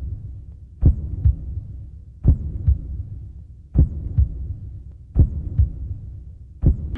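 A slow heartbeat sound effect: paired low thumps, lub-dub, repeating evenly about every second and a half over a low hum.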